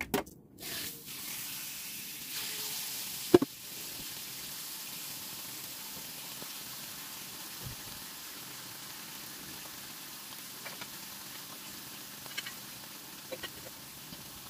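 Chicken thighs frying in a hot ridged cast-iron grill pan: a steady sizzle that starts about a second in, after a couple of knocks. One sharp knock stands out about three seconds in, and a few light clicks come near the end.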